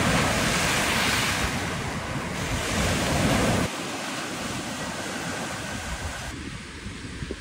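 Ocean surf breaking and washing in at the shoreline, with wind buffeting the microphone. The surf is louder for the first few seconds, then drops abruptly about halfway through.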